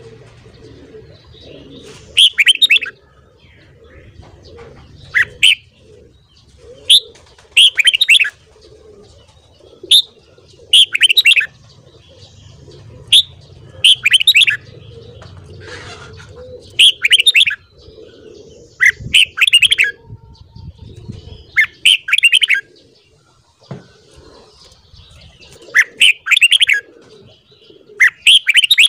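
Red-whiskered bulbul singing: about a dozen short, loud, warbling song phrases, each about half a second long, repeated every second or two.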